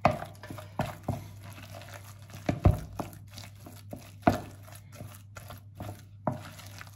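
Wooden spatula stirring thick raw fish paste in a bowl, giving irregular knocks and scrapes against the bowl about once or twice a second.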